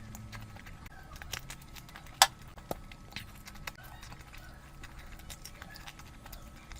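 Close-up eating sounds of someone eating curry: wet chewing and lip-smacking clicks, with one sharp, much louder smack about two seconds in.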